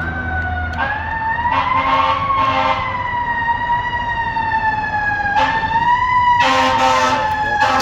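Really loud fire truck siren, a slow wail that rises and then falls, with about three short, harsher horn blasts over it.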